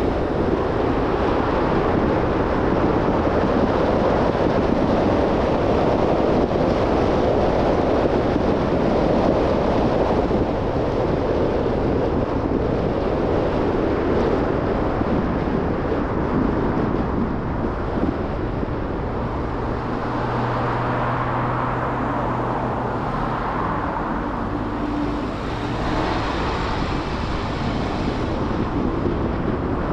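A car driving at road speed: steady tyre and wind noise, with a low hum joining about two-thirds of the way through.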